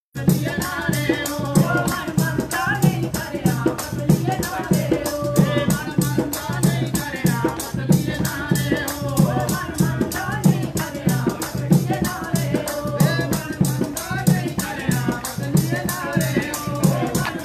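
Dogri folk song music: a fast, even rattle beat over a drum pulse, with a melody carried above it.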